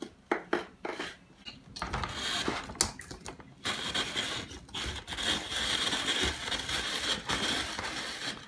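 Plastic toy ice crusher grinding ice: a few sharp clicks and knocks as the lid is handled, then from about two seconds in a continuous rattling grind that grows louder as the ice is crushed into the cup.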